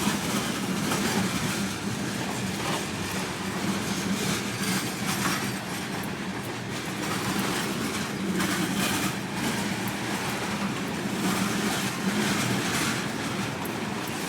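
Cars of a long Kansas City Southern manifest freight train rolling past: a steady rumble of steel wheels on the rail, with short irregular clicks and clatter over it.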